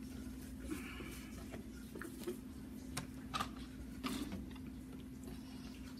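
A person chewing food, with scattered soft mouth clicks and food-handling ticks, over a steady low hum.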